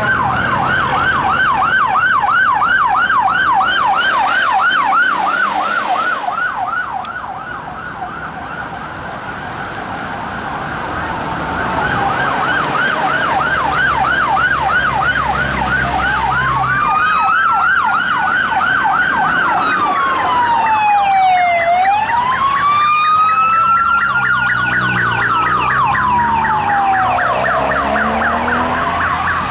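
UK police car siren on a fast yelp, about three to four sweeps a second. It fades for a few seconds and comes back, then changes to a slow rising-and-falling wail, with a second siren's sweeps overlapping it.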